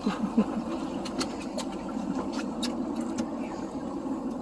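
Fishing boat's motor running steadily at idle, with a scatter of short sharp taps and clicks on board.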